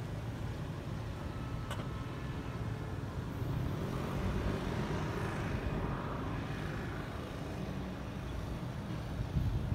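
Steady outdoor ambience of distant road traffic, a low rumble, with a faint click about two seconds in.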